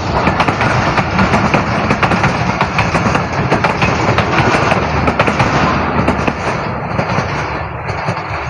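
Passenger train coaches rolling past close by: a dense, rapid clatter of steel wheels over rail joints over a constant rumble, easing off near the end as the last coach passes.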